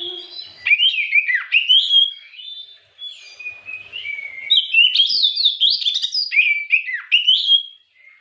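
Oriental magpie-robin (kacer) singing: fast runs of varied, sweeping whistled notes. There is a brief break about three seconds in, then a longer run.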